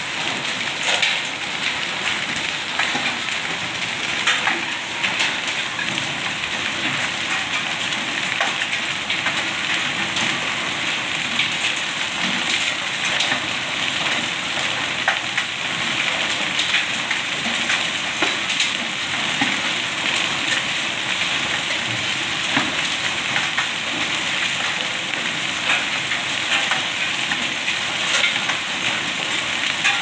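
Hailstones and rain pelting hard stone paving: a dense, steady patter with many sharp clicks from single stones striking.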